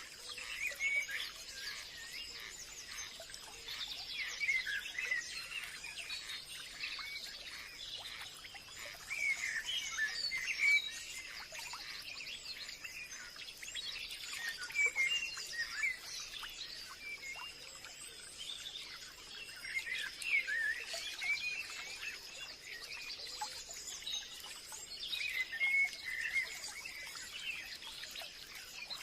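Forest birds chorusing: many small birds chirping and singing over one another, with a steady high-pitched tone running underneath.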